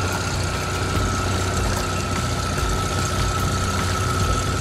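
Outboard motor running steadily at slow trolling speed: a constant low hum with a thin, faint high whine above it.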